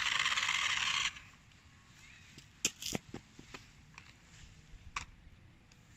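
Electric remote-control toy car running, a steady whirring hiss that cuts off about a second in. It is followed by several sharp clicks and knocks.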